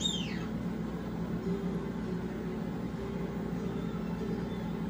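A steady low mechanical hum, like a fan or appliance running, with a brief high squeak that falls in pitch right at the start.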